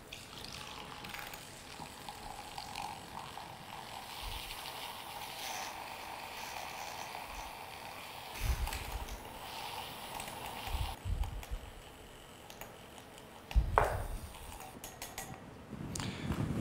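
Handheld battery milk frother whirring steadily as its whisk whips a small amount of cream stiff in a glass. The whir stops about eleven seconds in, and a few soft knocks follow as the glass and frother are handled and set down on a wooden board.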